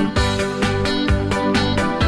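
Upbeat background music with a steady beat, about four beats a second.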